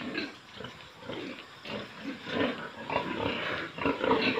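Pigs in their pens calling in short, irregular bursts that come thicker near the end.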